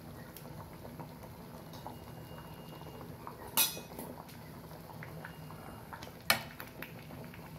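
Sambar simmering in a stainless steel pan with a steady low bubbling. A metal spoon clinks sharply against the pan twice as it stirs, once about halfway through and again near the end.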